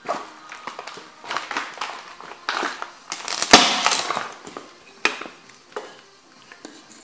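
Heavy rubber Cofra Thermo boots stomping on a wooden picture frame on a hard floor, its slats cracking and splintering in a series of sharp crunching impacts. The loudest crunch comes about three and a half seconds in.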